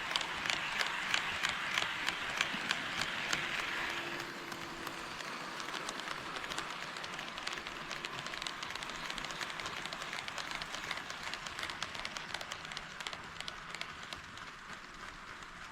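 HO scale model train rolling on KATO Unitrack, its wheels clicking over the rail joints: loud clicks about three a second at first, then quicker, fainter clicking that fades away near the end as the train moves off.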